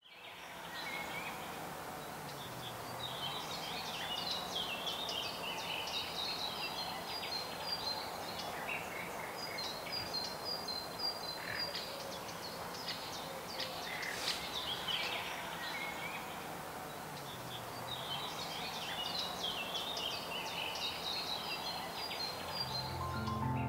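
Outdoor woodland ambience: several small birds chirping and twittering in repeated short phrases over a steady background hiss.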